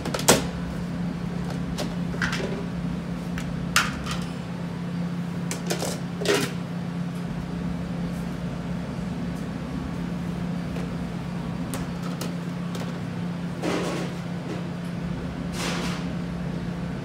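Steady low hum of kitchen machinery, with several short knocks and clatters scattered through it.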